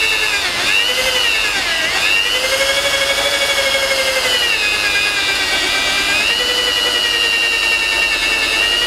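Power drill spinning a rubber eraser disc against car paint, rubbing off leftover double-sided badge tape. The motor's whine sags in pitch a few times in the first couple of seconds as the disc is pressed on, then runs steadier.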